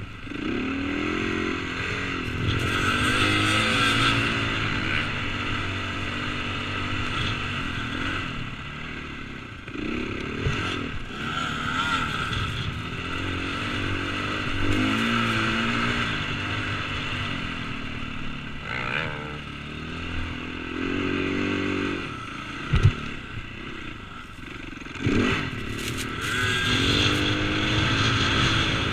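KTM 450cc single-cylinder four-stroke motocross engine under way in sand, revving up and falling back again and again as the throttle is worked, with wind rushing past the helmet. A single sharp thump comes about two-thirds of the way through.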